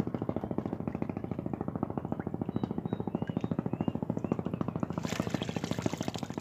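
An engine runs throughout with a fast, even pulsing beat. About five seconds in, water pours and drips from a long-handled scoop net lifted out of the pond.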